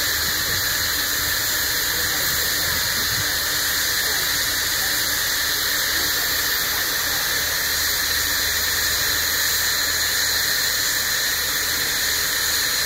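Steady loud hiss of steam escaping at the cylinders of Polish steam tank locomotive no. 5485, with no exhaust beats.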